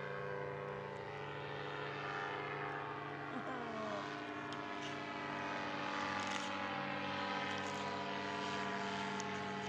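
Paramotor engine and propeller running steadily in flight overhead, a steady hum made of several even pitched tones.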